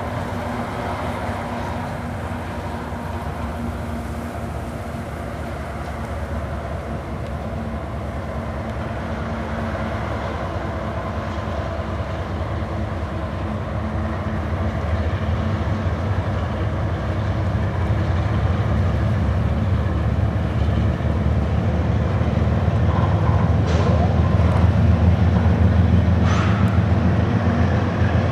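CSX diesel locomotives and coal hopper cars rumbling across a steel railway trestle: a steady low engine drone that grows louder through the second half.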